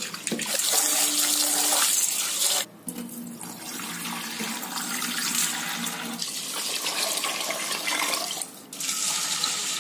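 Tap water running into a stainless steel bowl of kodo millet and rice as the grain is swished by hand to wash it. The tap stops abruptly about two and a half seconds in, the cloudy rinse water splashes as the bowl is tipped out, and the tap runs again near the end.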